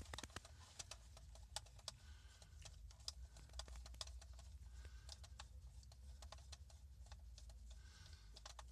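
Faint, irregular small clicks and taps of plastic dash-panel parts and a hand tool being handled, over a steady low hum.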